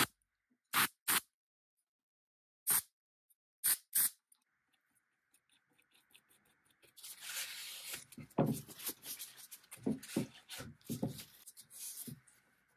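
A few short scratchy sounds in the first seconds. About halfway through comes several seconds of clattering and knocking as a metal bar clamp is handled, set across a wooden drawer and tightened.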